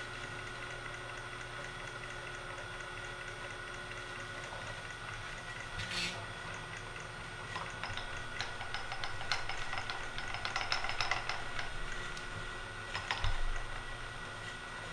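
Vertical milling machine running steadily with an edge finder in the spindle, a constant hum with a few steady tones. Scattered light clicks and ticks come through the middle, and a single low thump sounds near the end.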